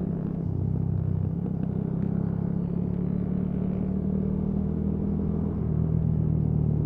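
Motorcycle engine running at a steady cruise while riding, a low, even hum with small shifts in pitch, a little before the end among them.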